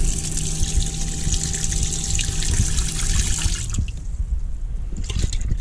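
Cold water tap running into a stainless steel sink, with the steady hum of the submersible fresh-water pump under it. Both stop together about three and a half seconds in, and a few light knocks follow near the end.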